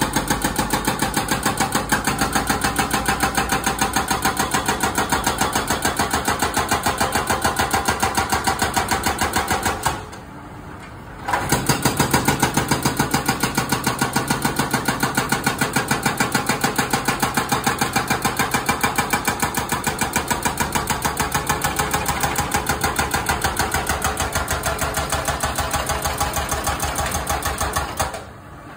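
Excavator-mounted hydraulic breaker hammering its chisel into road asphalt in a rapid, even run of blows, breaking up the pavement. The hammering stops for about a second around ten seconds in, then resumes, and stops again near the end.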